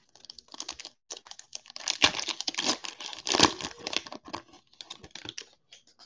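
Foil wrapper of an Upper Deck hockey card pack being torn open and crinkled, a dense crackling rustle that swells twice, about two and three and a half seconds in.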